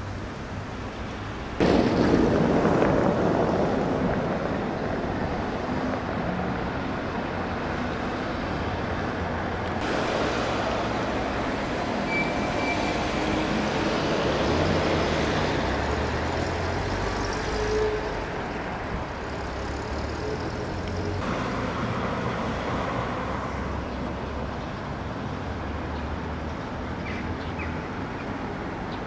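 Steady rumbling noise, like road traffic, that jumps in loudness about two seconds in.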